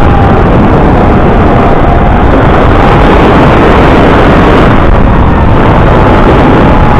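FPV quadcopter's motors and propellers heard from its onboard GoPro: a loud, even rush of prop and wind noise with a faint motor whine that drifts slowly in pitch as the throttle changes.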